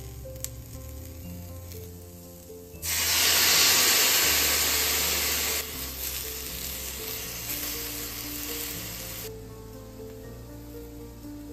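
Bamboo shoots, carrot and chikuwa sizzling loudly in a hot skillet as the seasoning liquid (mirin, soy sauce and sake) hits the pan. The sizzle starts suddenly about three seconds in, drops back after a few seconds and stops near the end. Background music plays throughout.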